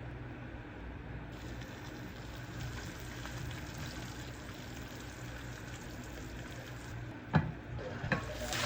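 Food sizzling steadily in a frying pan over a low hum, with two sharp knocks near the end.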